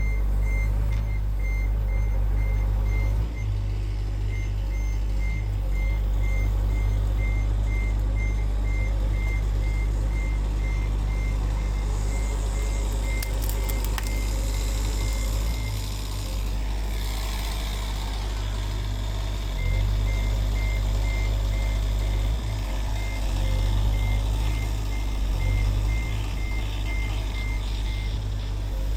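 Heavy machinery's diesel engine running steadily under a back-up alarm beeping about two to three times a second. The beeping stops about twelve seconds in and starts again about twenty seconds in.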